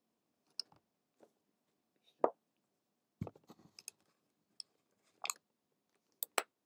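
Sporadic small clicks and taps, the loudest a little over two seconds in, with a quick cluster just after three seconds and two more near the end.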